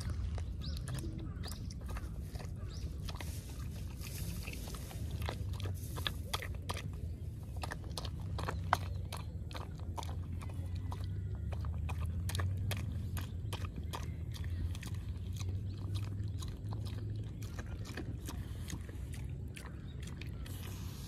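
A chow chow puppy eating from a metal bowl: quick, irregular crunches and chewing, with one sharper click about nine seconds in.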